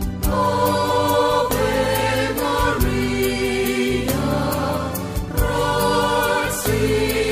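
Background music: a choir singing a slow devotional hymn in sustained chords over a regular beat.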